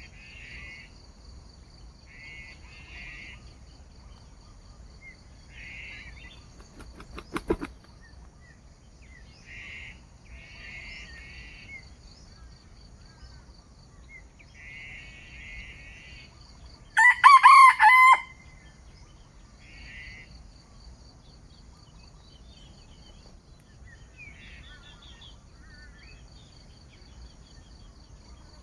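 A junglefowl rooster crows once, loud and lasting about a second, over a steady background of insects trilling and short repeated chirps. A single sharp click sounds about seven seconds in.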